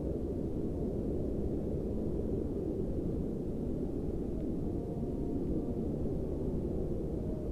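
Steady low rumbling noise of wind buffeting the microphone, flickering unevenly without a break.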